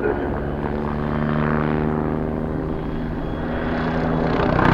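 MBB Bo 105 twin-turbine helicopter flying aerobatics overhead: a steady rotor beat and turbine hum with several pitched tones, some sliding in pitch partway through as it moves, getting louder near the end.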